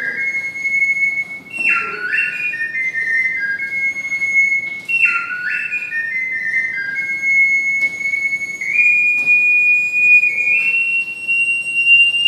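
Triple ocarina playing a slow melody, with two notes often sounding together in harmony. Short phrases jump up and step down, and a long high note is held through the last few seconds.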